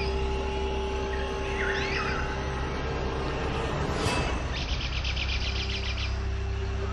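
Jungle ambience: birds calling with swooping whistled notes, and a fast rattling trill for about a second and a half midway, over a steady low drone.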